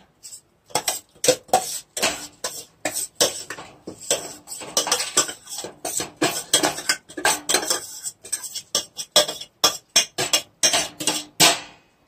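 Washed raw rice being poured and scraped out of a metal bowl into a metal pressure cooker: irregular clattering and clinking of the grains and the bowl against the cooker.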